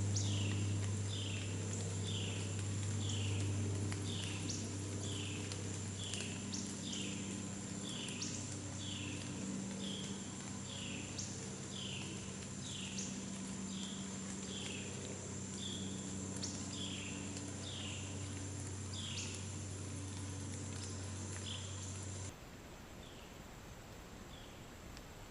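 Outdoor woodland ambience: a short falling chirp repeating about once a second over a steady high insect whine and a low steady hum, all cutting off suddenly near the end.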